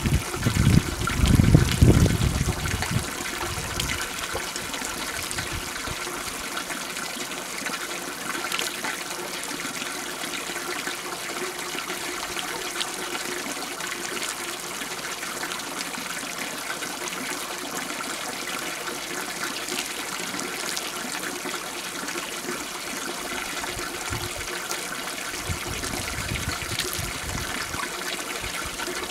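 Piped-in spring water running continuously from a pipe spout and splashing onto a wet, algae-covered surface: a steady trickling splash. A low rumble sits under it in the first couple of seconds.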